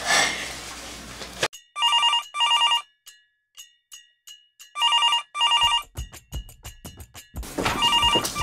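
Cordless telephone ringing with an electronic double ring, three times about three seconds apart. Faint clicks come between the rings.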